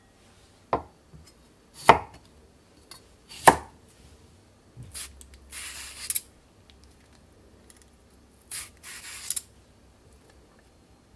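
Three sharp knocks of a spoon against a small glass bowl, each with a brief ring. After a pause come two rasping strokes, about a second each, of a vegetable peeler shaving thin slices off a cucumber.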